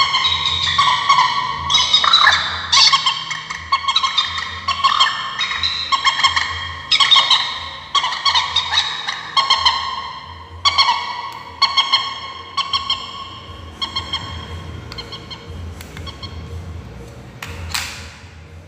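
Recorded bird calls played loudly through a portable bird-caller MP3 speaker: harsh, repeated calls with many overtones, coming again and again and fading over the last few seconds. A short noise burst comes near the end.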